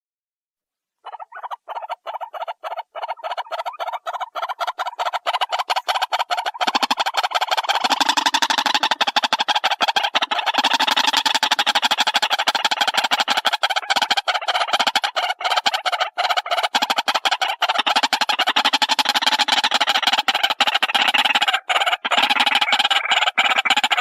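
White-breasted waterhen calling: a fast run of hard, repeated notes that starts after about a second of silence and grows fuller and louder about eight seconds in, with a lower note joining underneath.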